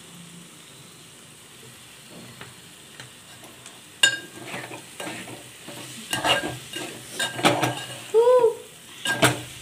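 Metal slotted spatula stirring a thick chicken curry in a metal pot, mixing in freshly added salt: a faint simmer for the first few seconds, then from about four seconds in a knock and repeated scraping strokes against the pot.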